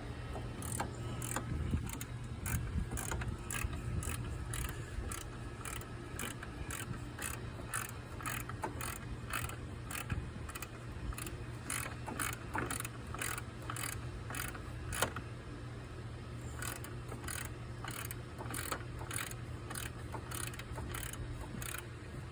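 Socket ratchet wrench clicking in a steady run of short strokes, about two or three clicks a second, with a brief pause about sixteen seconds in, as it turns fasteners on a 2013 Ford Mustang during brake booster removal.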